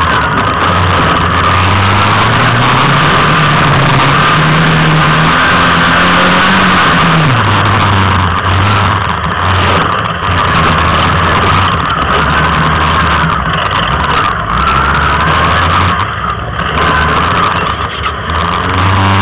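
Off-road buggy's engine heard from on board under way, its pitch climbing for several seconds and then dropping sharply about seven seconds in, then running steadily with a few brief dips in level near the end. A loud rushing noise runs over it throughout.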